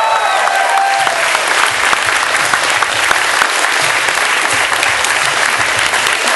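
Audience applauding steadily as a guest is introduced, after a drawn-out shout trails off in the first second.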